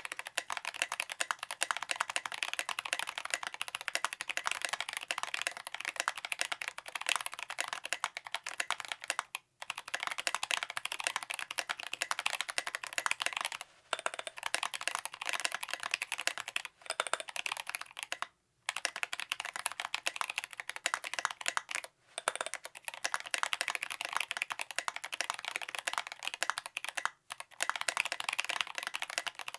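Fast, continuous typing on a 60% custom mechanical keyboard with a brass plate, lubed 67g Zealios V2 tactile switches and tall SA profile keycaps: a dense run of keystrokes with a few short pauses.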